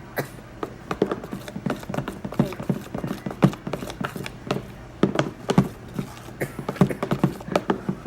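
Fluffy slime of clear glue and shaving cream being mixed, giving off a quick, irregular run of sticky wet clicks and squelching pops.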